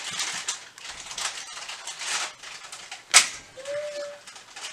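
Thick blended smoothie pouring from a blender jar into a glass: an uneven wet splashing hiss. A sharp click about three seconds in, followed by a short steady tone lasting about half a second.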